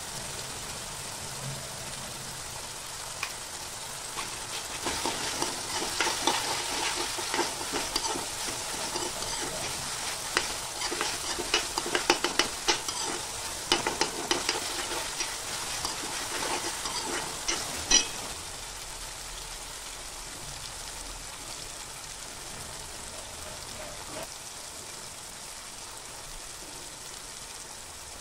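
Chopped tomato masala sizzling in a metal kadai, with a steel spoon scraping and clacking against the pan as it is stirred from about five seconds in until a last loud clack about eighteen seconds in. After that the steady sizzle goes on alone.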